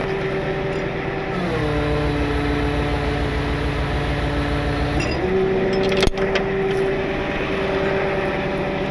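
Tow truck engine running steadily, its pitch dropping about a second and a half in and coming back up about five seconds in. A single sharp knock about six seconds in.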